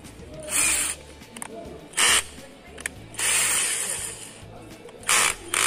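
Keyless chuck of a Crown 12V cordless drill/driver being turned open and shut, in several short raspy bursts, the longest about three seconds in. Background music plays throughout.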